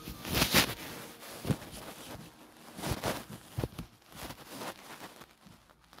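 Soft, irregular rustling with a few light knocks: handling noise, with no ringtone or voice playing.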